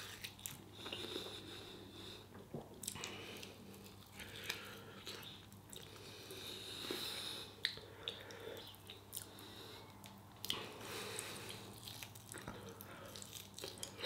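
Faint biting and chewing as barbecue pork rib meat is gnawed off the bone and eaten, with a few sharp small clicks and a faint steady low hum underneath.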